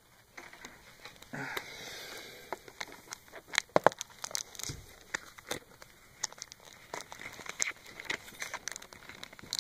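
Crinkly plastic packaging on a DVD case being picked at and torn, in quick irregular crackles and crinkles, loudest about four seconds in.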